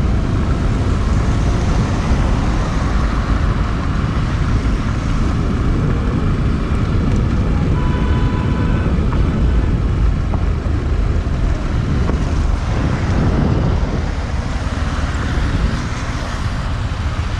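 Steady vehicle and road noise from travelling along a highway, with wind rumbling on the microphone and heavy in the low end. A faint, brief tone comes through about eight seconds in.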